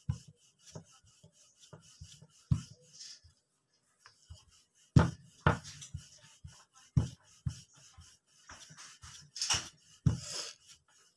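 Wooden rolling pin rolling out a roti on a round wooden board: rubbing strokes with irregular knocks of wood on wood as the pin is pushed and lifted, the loudest knocks about five seconds in and near the end.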